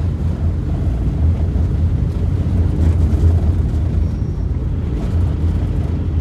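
Steady low rumble of a car driving on a rough dirt road, heard from inside the cabin: engine and tyres on the unpaved, potholed surface.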